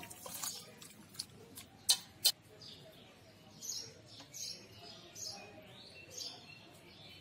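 Two sharp metal clinks about two seconds in, with lighter taps before them, as metal utensils knock against a stainless steel serving bowl. Birds are chirping in the background after them.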